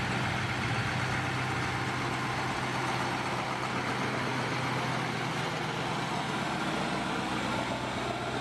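Diesel engine of a Scania truck tractor unit running with a steady low hum as it rolls slowly past.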